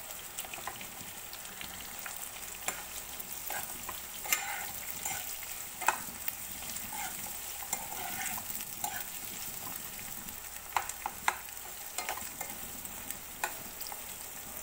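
Sliced onions sizzling in hot oil in a kadai as they are stirred with a spatula, with sharp taps and scrapes of the spatula against the pan every few seconds. The onions are being fried down until they colour.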